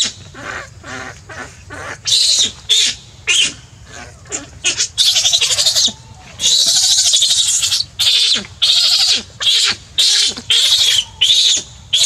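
Baby macaque screaming in distress: a run of shrill, piercing cries, short ones at first and then several long drawn-out screams, with softer wavering whimpers in between.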